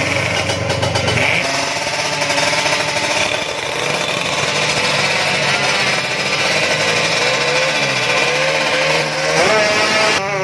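Drag-race motorcycle engine being revved on the stand, loud and uneven, with a rapid rattling pulse; its pitch climbs sharply near the end as the throttle is opened.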